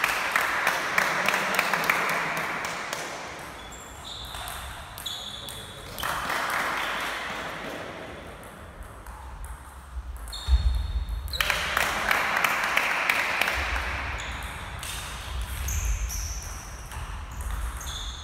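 Table tennis ball clicking in quick sharp hits off the bats and table, first bounced before a serve, then in a rally.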